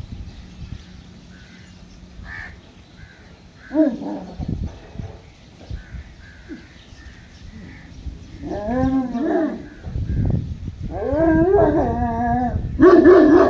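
A dog whining and yelping in drawn-out pitched calls: one about four seconds in, another near nine seconds, then a run of calls that grows louder near the end.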